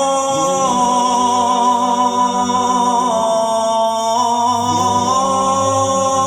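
A man's voice chanting an Islamic ibtihal (supplication), holding long melismatic vowel notes that step from one pitch to the next several times without a break.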